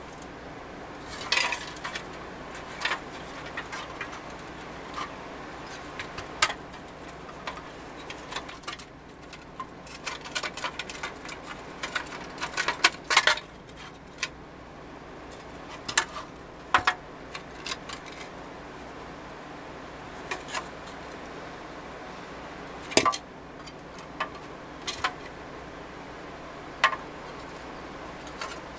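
Rusted pressed-steel toy forklift body parts being handled and turned over on a workbench: irregular sharp metal clinks and knocks, with a quick run of clatters near the middle, over a steady low hum.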